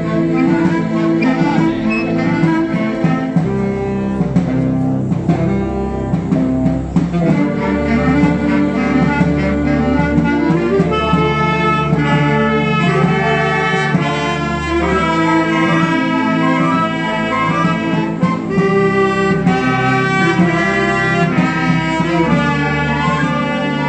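Wind band of flutes and clarinets with other winds playing a tune together, with quick runs of notes in the upper parts from about halfway through.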